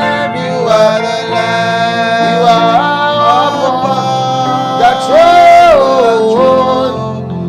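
Worship music: a solo voice singing a drawn-out, wavering melody with long slides in pitch over sustained instrumental chords.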